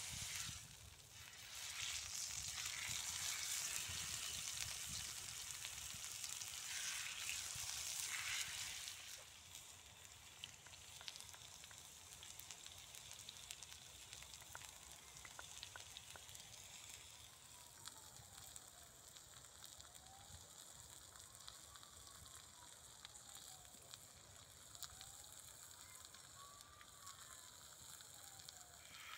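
Food sizzling and spitting on a heavy cast iron camp griddle. The sizzle is louder for the first eight seconds or so, then settles to a quieter, steady sizzle with small crackles.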